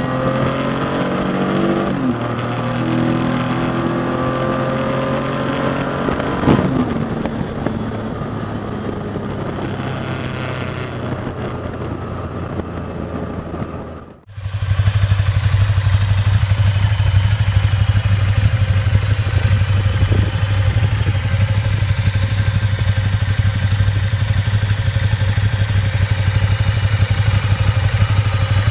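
A Triumph motorcycle's engine running at high revs on the move, with wind noise and a couple of drops in pitch. About halfway through, a cut to a Ducati Diavel's L-twin engine idling steadily and loudly.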